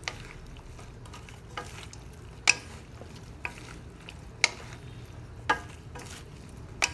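A spatula stirring chicken and vegetables in a pan, clacking sharply against the pan about once a second over a steady low sizzle of frying.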